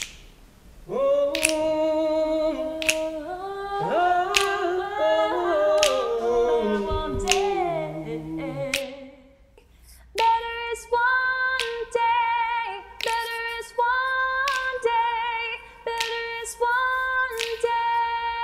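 Mixed virtual choir singing a cappella in layered harmony, with sharp percussive clicks keeping time on the beat. The voices fade out around nine seconds, then come back on long held chords with the clicks coming more often.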